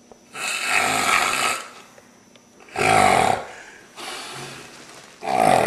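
A person snoring loudly: a run of snores, each about a second long, with a softer breath between the last two.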